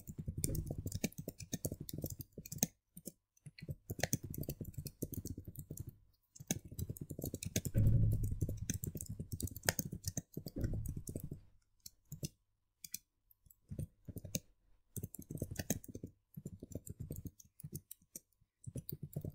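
Computer keyboard being typed on, in runs of quick keystrokes broken by short pauses.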